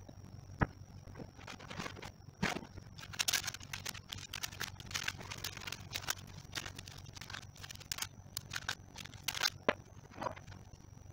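Light knocks and short scraping, rustling sounds as a drinking glass is pressed into balls of dough on a parchment-lined baking tray, most of them from about three seconds in until near the end. A faint steady high whine sits underneath.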